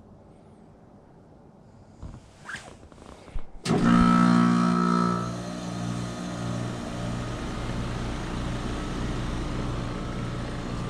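American Standard Heritage 15 heat pump outdoor unit coming out of defrost: a few brief hisses, then near four seconds a sudden loud hum as the unit starts back up in heating, easing after about a second into steady running.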